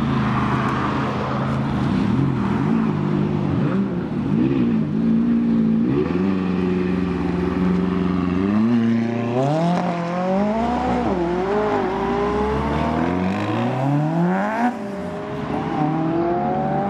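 McLaren sports car's 3.8-litre twin-turbo V8 idling, then blipped three times. It then pulls away hard, with the revs climbing through several gear changes, and the sound drops off suddenly near the end as the car moves away.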